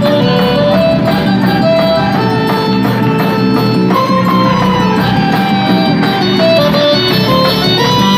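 Loud instrumental festa junina quadrilha music: a melody of held notes over a dense, steady accompaniment, with no singing.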